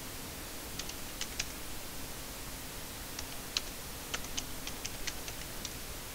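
Computer keyboard keystrokes clicking over steady hiss. A few quick keystrokes come about a second in, then a longer run of typing from about three seconds to near the end.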